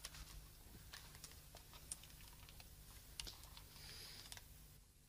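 Near silence: room tone with a low hum and a few faint, scattered clicks and handling sounds.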